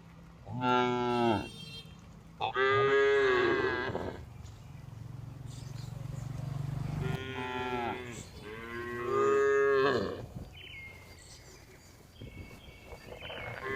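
Cows mooing: about five drawn-out moos one after another, the second the loudest, with a low steady hum in the lull between them.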